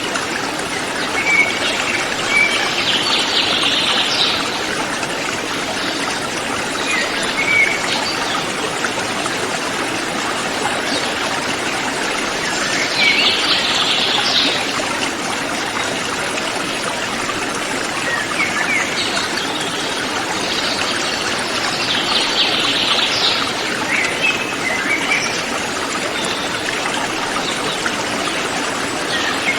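River water flowing steadily, with forest birds calling over it: scattered short chirps and, about every nine to ten seconds, a longer, busier burst of higher chirping.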